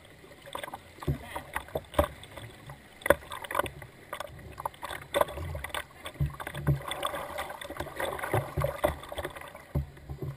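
Double-bladed kayak paddle strokes splashing into the river and water slapping the plastic hull, heard up close at the bow: irregular splashes about once a second over a steady rush of moving water.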